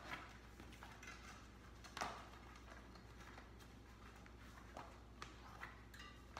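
Faint rubbing, rustling and scattered clicks of a bicycle tire being worked by hand around a wheel rim, with one sharper snap about two seconds in, over a low steady hum.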